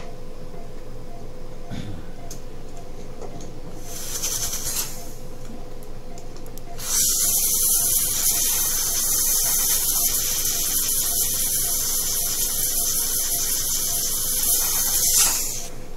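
Dental air-abrasion nozzle spraying a sodium bicarbonate slurry onto a dog's molar: a short hiss about four seconds in, then a loud steady hiss from about seven seconds that stops shortly before the end. The spray is cleaning out the freshly drilled cavity before the filling is bonded.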